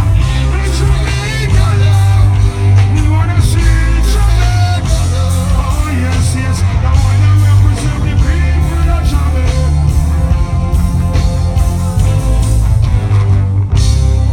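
Loud music with a heavy bass line and a singing voice.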